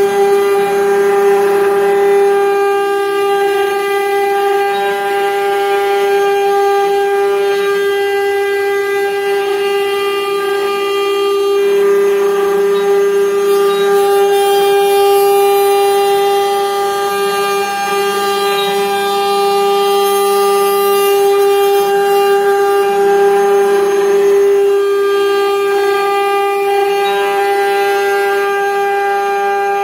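Legacy Explorer CNC router carving a 3D raster pass with a tapered ballnose bit. The spindle gives a loud, steady whine at one constant pitch, and a lower hum comes and goes as the machine moves along its passes.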